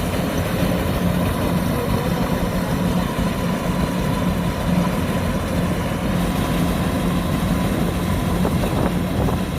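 Kubota DC-105X combine harvester running steadily while harvesting rice: a continuous diesel engine drone with the threshing machinery, carrying a steady higher whine.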